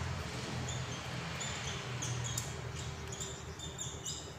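Marker pen squeaking in short strokes on a whiteboard as words are written, over a low steady hum.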